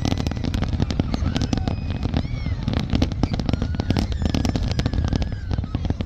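Large fireworks display: a dense, rapid run of bangs and crackles over a continuous low rumble.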